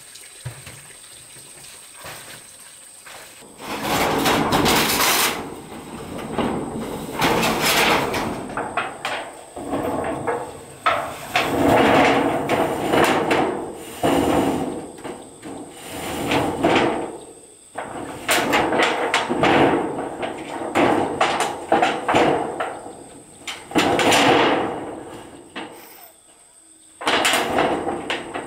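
Corrugated metal roofing sheets clattering and scraping as they are dragged and laid over a wooden roof frame. Repeated rattling bursts of a second or two start about four seconds in and carry on with short pauses, including a brief lull near the end.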